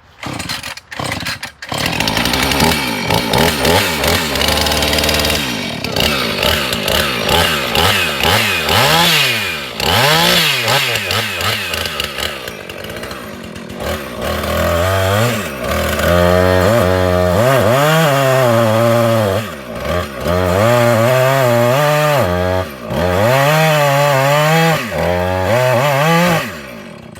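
Husqvarna 450 Rancher two-stroke chainsaw, choked after stalling, sputtering a few times and catching within the first two seconds. It then runs at high revs, revving up and down repeatedly, with the throttle dropping back briefly a few times in the second half.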